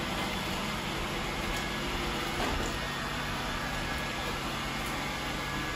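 Robot vacuums, an iRobot Roomba and a Shark ION, running on a hardwood floor: a steady whir of suction motors and brushes as they sweep up confetti.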